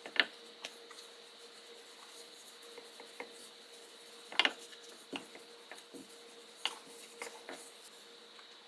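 Rolling pin pressed and rolled over crustless white bread slices on a wooden cutting board: faint rubbing, with a handful of light taps as the pin knocks on the board, the loudest just after the start and about four and a half seconds in.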